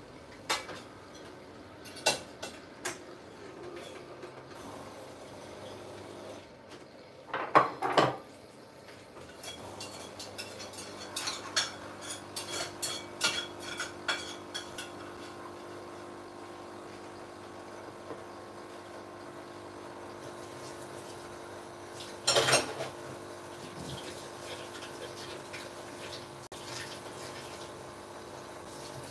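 Dishes and cutlery clinking in scattered bursts: a few light clinks, a cluster about a quarter of the way in, a run of small clinks after that, and one loud clatter about three quarters of the way through. A faint steady hum runs underneath from about a third of the way in.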